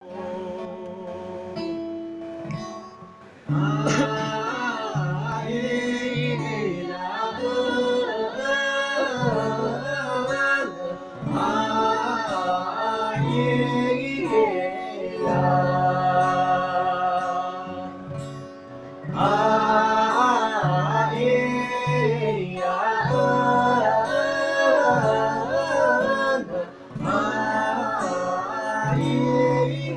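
A voice singing a traditional ballad in long, gliding phrases over a plucked string accompaniment, in rehearsal. The instrument plays alone at first and the singing comes in about four seconds in.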